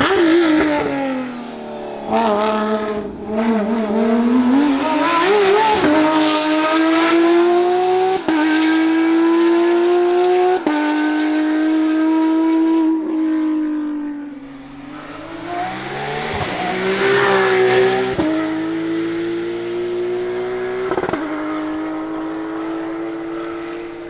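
Racing cars at full throttle up a hillclimb course. The engine note falls as a car slows for a bend, then climbs through the gears with abrupt steps at each upshift. It fades, and another car climbs past later.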